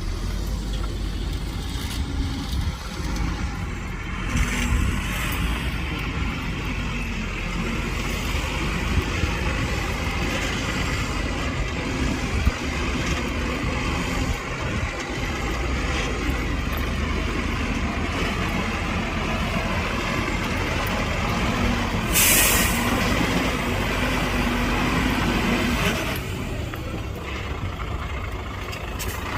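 Heavy diesel engines of earthmoving machinery, dump trucks and a bulldozer, running steadily. About two-thirds of the way through there is one short, sharp hiss of released air, as from a truck's air brakes.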